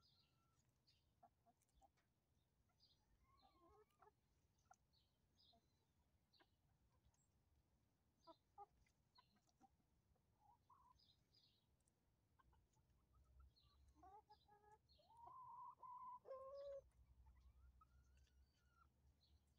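A flock of chickens clucking quietly as they forage, with small clicks of pecking and scratching in the litter. About fifteen seconds in, one chicken gives a louder drawn-out call lasting about two seconds that drops in pitch at its end.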